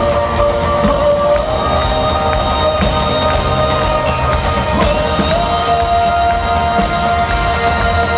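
Live rock band playing a Christian rock song, with a long held note that steps up in pitch about five seconds in.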